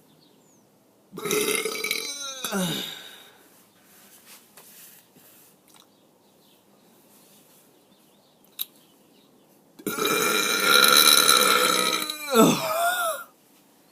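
A man burping twice: a loud burp about a second in lasting about two seconds, then a longer, loud burp about ten seconds in lasting over three seconds, ending with a falling pitch.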